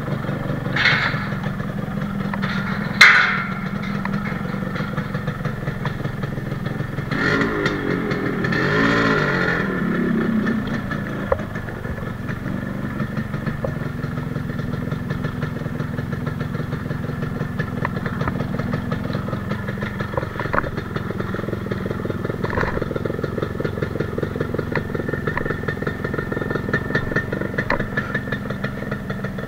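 Freshly rebuilt Yamaha RXZ's two-stroke single-cylinder engine running steadily at idle, with one short blip of the throttle, rising and falling, about eight seconds in. A sharp click about three seconds in.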